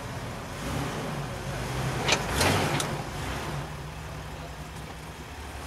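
Jeep Wrangler TJ's engine running steadily at low revs as it crawls over rocks, with a short sharp noise about two seconds in.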